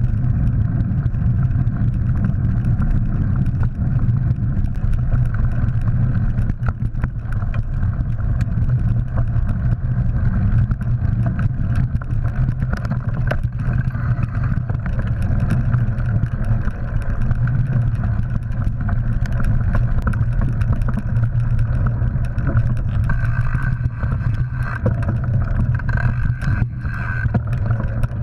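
Steady low rumble of wind and ride vibration picked up by a GoPro Hero3 on a mountain bike riding a dirt trail, with scattered clicks and knocks from bumps in the track.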